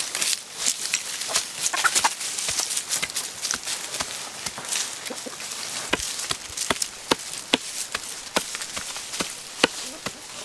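Cleaver chopping raw beef on a wooden log block, hand-mincing the meat: sharp knocks, about two or three a second, with chickens clucking.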